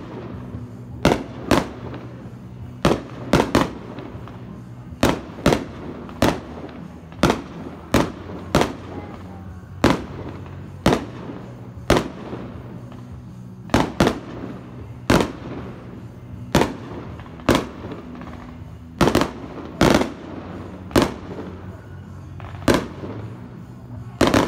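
Aerial fireworks bursting overhead: a long, irregular series of sharp bangs, about one or two a second, over a faint steady low hum.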